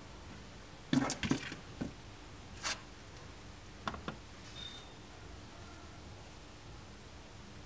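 Handling knocks and clicks on a stainless-steel digital kitchen scale: a small steel weight is lifted off the metal platform with a cluster of sharp knocks about a second in, then a plastic bowl is set down on it with two clicks around the middle.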